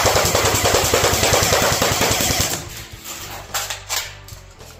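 A&K M14 airsoft electric rifle firing a long full-auto burst, a rapid stream of pops that stops about halfway through. A couple of separate pops follow near the end.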